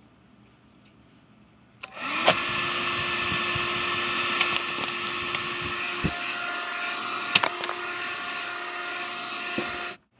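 Vacuum cleaner starting up about two seconds in, its motor winding up to a steady whine. It runs with a few knocks over it, then cuts off abruptly near the end.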